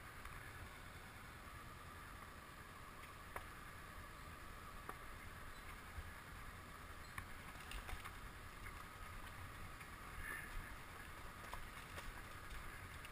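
Honda CB500X motorcycle ridden over loose, deep gravel: a steady low rumble and hiss of tyres and wind, with scattered sharp clicks of stones about half a dozen times.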